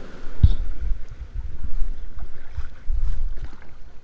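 Water churned up by a raw-water intake surging around a small boat: low rumbling with a thump about half a second in, further surges, and faint splashing.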